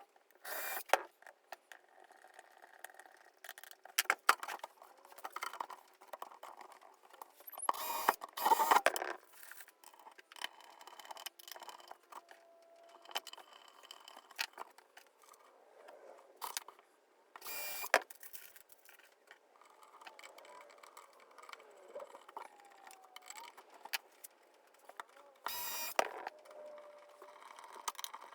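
Scattered clicks, knocks and metallic jangling of small hardware and tools being handled, with three short louder bursts of noise spread through.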